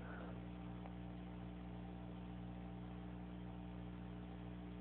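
Steady low electrical hum with a faint hiss underneath: mains hum in the recording's background.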